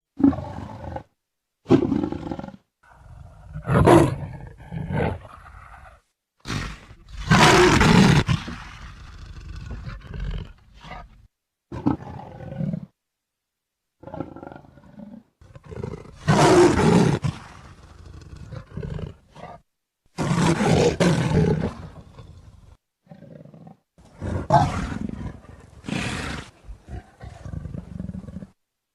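Leopard roaring: a string of separate rough, throaty roars and growls, each a second or two long, with short silent gaps between them.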